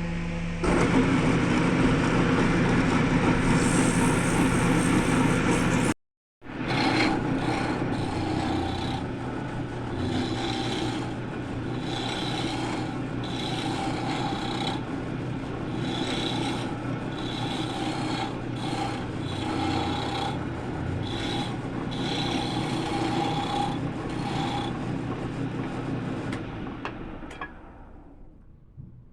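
Wood lathe running while a spinning wooden piece is rubbed and scraped, likely by a tool or abrasive held against it. There is a steady motor hum under the scraping, which swells in regular strokes about once a second. The sound dies away near the end.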